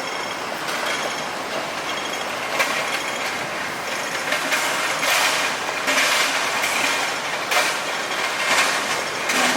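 A passing vehicle rattling and clattering, with a run of louder clanks in the second half.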